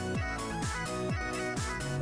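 Background electronic music with a steady kick-drum beat and sustained synth notes.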